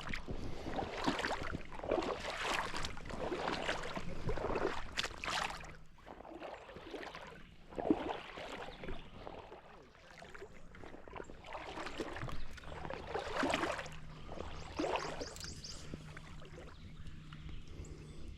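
Splashing steps through shallow river water, an uneven swish about once a second with a couple of quieter pauses and one sharper knock about eight seconds in.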